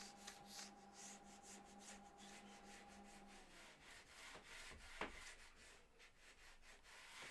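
Very faint rubbing of a small handheld edge-banding iron sliding along heat-applied edge banding on a table edge. A faint steady hum stops about three and a half seconds in, and there is one light knock about five seconds in.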